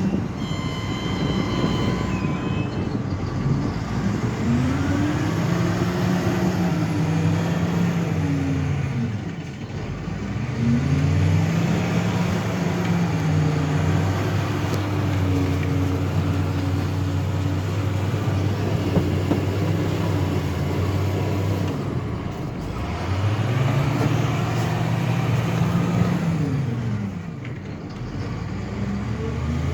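Truck engine revving up and easing off again and again, with steadier running in between. A brief high tone sounds near the start.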